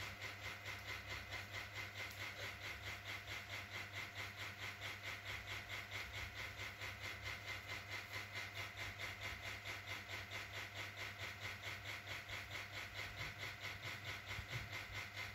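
Helifan BHF04 small ceiling fan running at speed: a steady whooshing hiss from the spinning blades that pulses rapidly and evenly, over a low motor hum.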